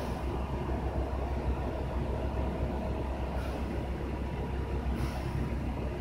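Steady low rumble with a hiss over it: continuous mechanical background noise.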